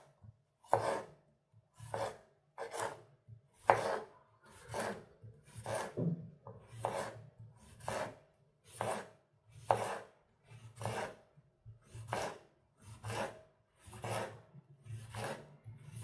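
Victorinox 6.7833 serrated tomato knife slicing a cucumber on a bamboo cutting board: a steady run of short rasping cuts, about two a second, each stroke ending as the blade meets the board.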